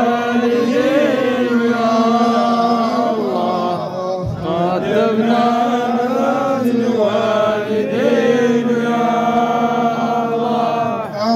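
A man chanting into a microphone through loudspeakers: long held notes with ornamented turns in the melody, with a brief break about four seconds in.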